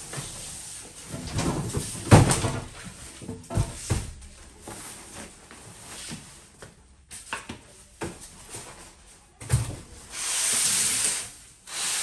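Cardboard carton and plastic packing being pulled off a new washing machine. There are scrapes and a few hard knocks about two and four seconds in, then a longer rustle of packing near the end.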